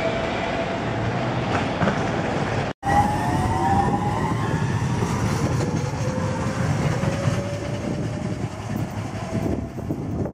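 Copenhagen Metro driverless electric train running along the track: wheel and running noise with the motors whining in several gliding tones. The sound breaks off for a moment about three seconds in, then the train noise and whine carry on.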